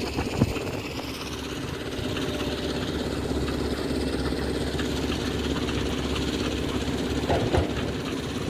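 An engine running steadily at a constant pitch, with two short knocks, one just after the start and one near the end.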